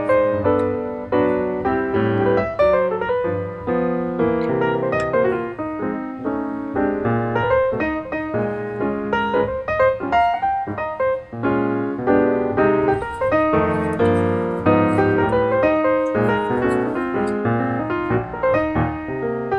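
Background piano music, a continuous run of notes at a steady level.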